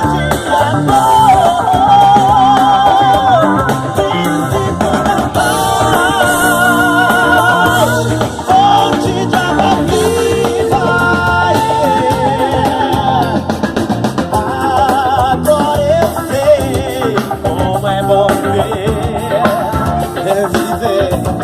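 Live band playing an instrumental passage between verses, with drum kit, bass, electric guitar and keyboards. A melodic lead line with vibrato runs over the band.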